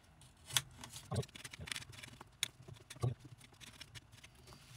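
Kitchen knife slicing peeled apples on a wooden chopping board: irregular light taps as the blade meets the board.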